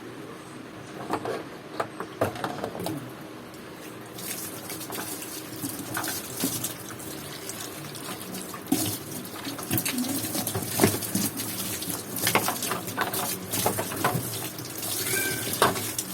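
Water running and splashing, with many scattered knocks and clicks that grow busier after about four seconds.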